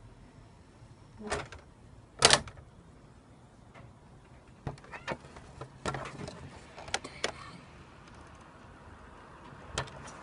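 Sliding door being handled and opened: a loud knock about two seconds in, then a run of short clicks and taps through the middle, and one more knock near the end.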